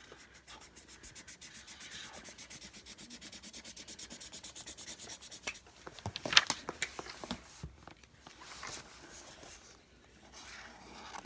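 A marker scribbling on paper, colouring in with quick, even back-and-forth strokes, about seven or eight a second. A few louder, scratchier strokes come about six seconds in, then slower, scattered strokes.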